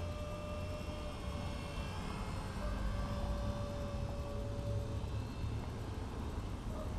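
Radio-controlled model helicopter (WLtoys V931) in flight: a steady rotor hum with a thin electric-motor whine that drifts slightly in pitch.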